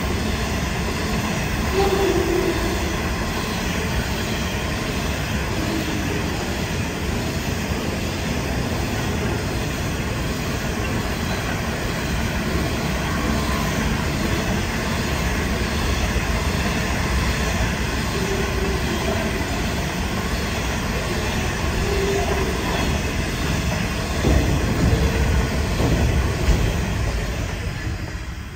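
Coal train hopper wagons rolling past: a continuous rumble and clatter of steel wheels on rail, with brief wheel squeals now and then. A run of louder clunks comes a few seconds before the end as the last wagons pass, and the sound then falls away.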